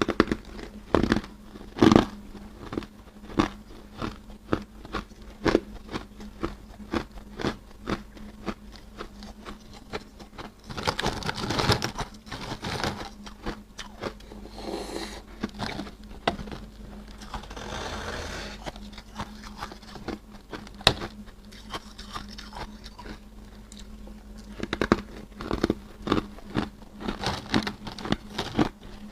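Freezer frost crunched between the teeth close to the microphone: many sharp crunches, broken by two longer noisy stretches of grinding or scraping. A steady low hum runs underneath.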